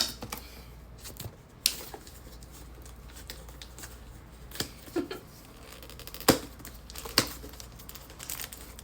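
Handling noises of packaging being worked at: scattered clicks and knocks with some crinkling, the two loudest knocks a little after six and seven seconds in.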